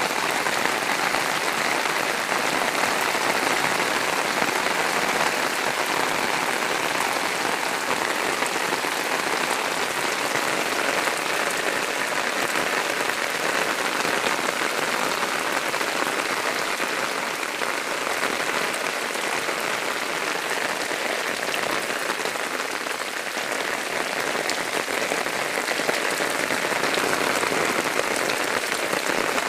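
Rain falling steadily on a muddy lane and puddles, an even hiss that does not let up.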